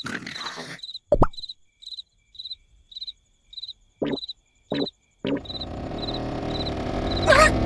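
Cartoon night-time sound effects: a cricket chirping in an even rhythm, nearly two chirps a second, broken by a few short comic sound effects. A little past two-thirds in, a fuller, louder noisy sound swells up under the chirping.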